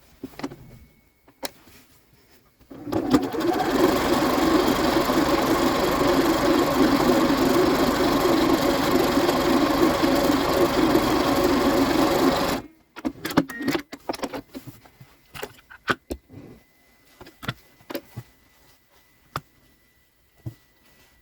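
Electric sewing machine running steadily at speed for about ten seconds as a seam is stitched, then stopping abruptly, followed by light clicks and handling of the fabric.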